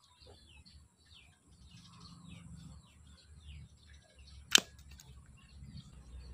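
Birds chirping throughout, then one sharp snap about four and a half seconds in as a plastic toy bow looses a suction-tipped arrow that knocks a small ball off its rack.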